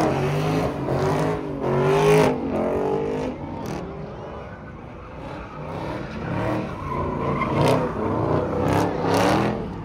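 Car engines running, with people's voices mixed in; loud for the first few seconds, quieter in the middle, then louder again near the end.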